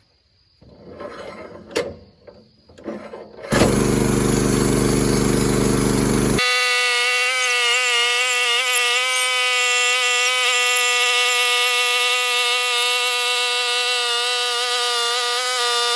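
A few knocks and clicks, then the portable sawmill's gas engine starts about three seconds in and runs steadily at high speed with a strong, even whine.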